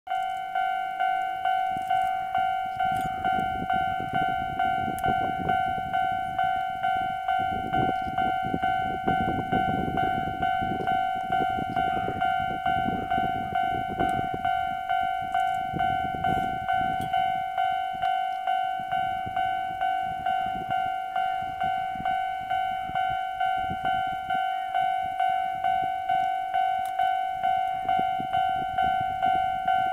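Japanese level-crossing warning bell ringing: a metallic ding, each stroke quickly fading, repeating evenly a little more than once a second. It signals that the crossing is closed for an approaching train.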